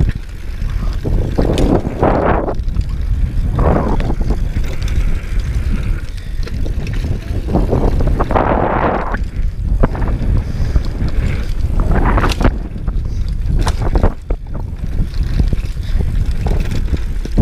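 Downhill mountain bike ridden fast over a dirt trail: a steady low rumble of wind on the microphone, swells of tyre noise on loose dirt every second or two, and sharp clicks of the bike rattling over bumps.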